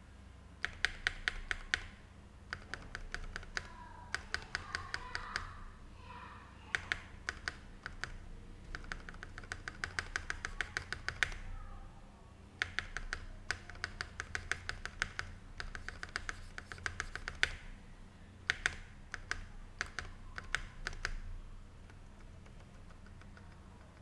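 Spacebar of a Dareu EK87 mechanical keyboard, its stabilizers modded, pressed over and over in quick runs of clacks with short pauses between the runs. The tapping stops a few seconds before the end.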